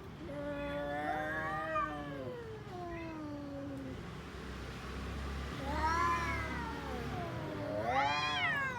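Domestic cat yowling in long, drawn-out meows. The first call lasts almost four seconds and falls in pitch at its end; a shorter call comes about six seconds in, and a higher, rising call comes near the end.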